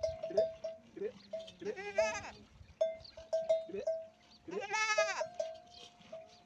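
A metal bell on a camel's neck clinks irregularly, striking the same ringing note again and again. Twice, about two and five seconds in, a long wavering bleat rises over it.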